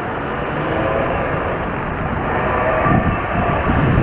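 Wind buffeting the microphone: a steady low rumble that swells in gusts about three seconds in.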